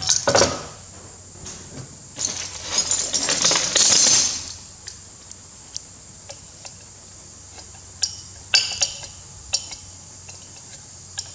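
Screwdriver tip working at a steel circlip inside a CAV rotary injection pump housing to prise it from its groove: a few knocks at the start, a stretch of scraping about two seconds in, then scattered light metallic clicks.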